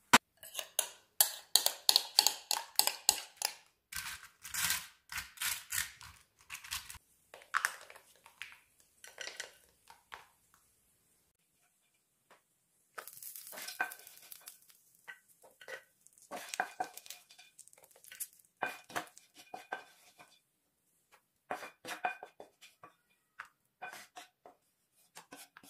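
Kitchen utensils working in a glass baking dish while fatteh is layered and topped: a spoon scraping and clinking against the glass, with small pieces dropping in. The sound comes in bursts of rapid clicks and knocks, with a pause about halfway through. Some of the later taps ring briefly.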